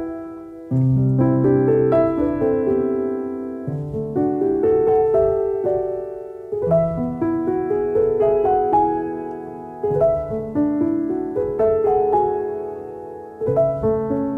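Background piano music: a gentle melody of single struck notes and chords, each fading after it is played, in phrases with brief pauses between them.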